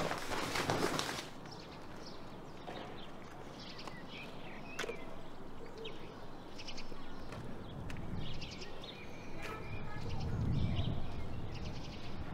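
Bedding rustling briefly as a duvet is pulled, then open-air ambience with songbirds chirping here and there over a steady background, and a low rumble swelling near the end.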